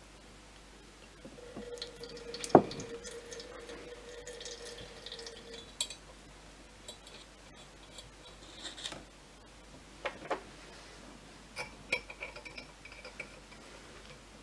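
Water trickling through a small metal funnel into a model steam boiler, with a sharp knock about two and a half seconds in. Light metallic clicks and clinks follow as the funnel is taken out and a brass fitting is screwed into the boiler's filler hole.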